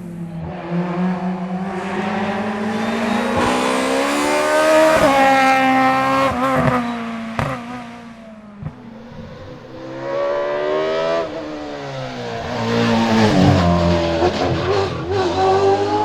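Race car engine revving hard, its pitch climbing with quick breaks at the gear changes, then backing off about halfway through and pulling up again near the end.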